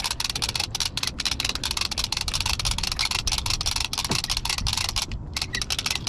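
Hand-cranked diver's anchor reel being wound in, clicking rapidly and evenly, about ten clicks a second as the line spools on, over a low steady rumble.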